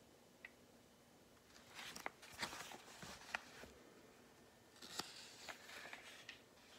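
Faint rustling and soft clicks of paperback book pages being handled and turned, in two short stretches.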